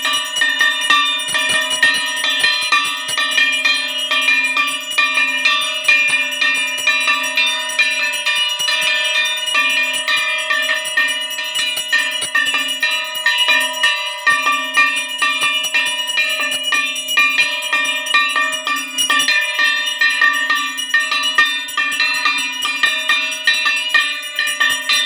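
Puja hand bell rung rapidly and without pause during an aarti, many strikes a second blending into one continuous ringing.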